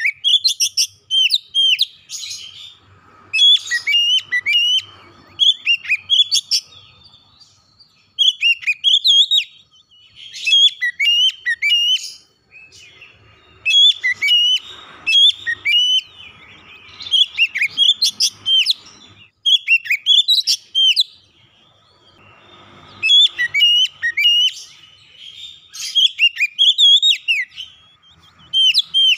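Oriental magpie-robin (kacer) singing: loud, varied whistled phrases a second or two long, repeated with short pauses between them.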